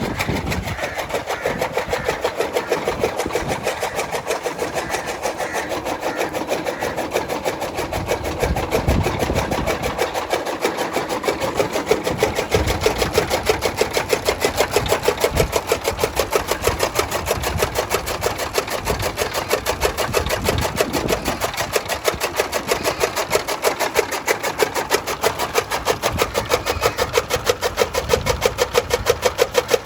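Motor-driven toka chaff cutter running and chopping fodder grass, a loud, fast, even mechanical clatter with a steady hum under it and a few irregular low thuds.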